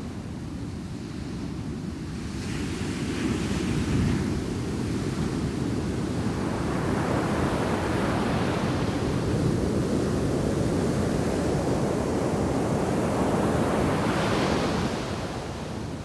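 Ocean surf of a heavy shore break crashing and washing on a sandy beach. A wave breaks about two to four seconds in, then a longer, louder wash builds and holds before easing off near the end.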